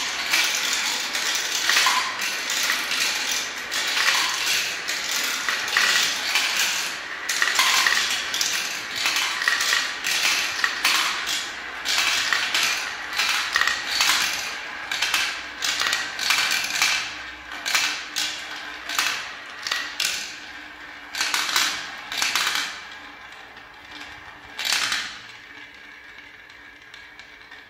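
Many small plastic balls rolling and clattering through a plastic marble run's tubes, spinning around its funnels and dropping into the catch cup. It is a dense, busy rattle at first that thins in the second half to separate clicks and short rolls, and grows quieter near the end.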